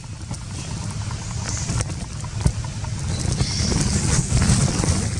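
Wind buffeting the microphone as a choppy low rumble, with a few faint clicks; a higher hiss swells about three seconds in.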